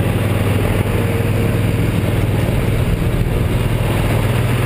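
Motor vehicle engine idling, a loud, steady low hum that holds even throughout.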